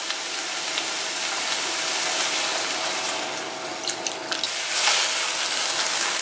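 Onions and greens frying in a non-stick pan, with liquid egg whites poured in from a carton in a stream near the middle, running over the hot pan. There are a few light ticks before the pour, and it gets louder toward the end.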